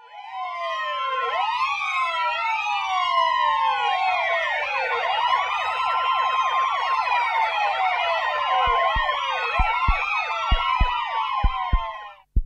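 Several emergency vehicle sirens wailing over one another, their pitches rising and falling. About two-thirds of the way in, low heartbeat-like thuds join at roughly two a second, and everything cuts off suddenly just before the end.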